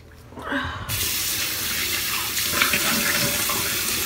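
Bathroom sink tap turned on about a second in, then water running steadily into the basin.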